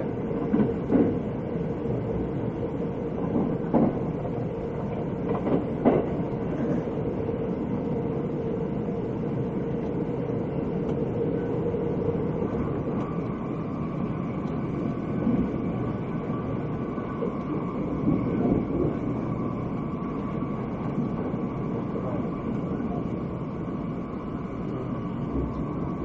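Cabin noise of a Thunderbird limited express electric train running along the line: a steady rumble with a hum, a few sharp knocks in the first six seconds, and a higher steady tone taking over from the hum about halfway.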